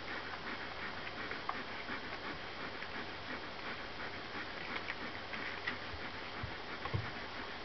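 Borzoi puppies nursing at their mother: a continuous run of small suckling clicks and smacks, with a couple of low thumps near the end.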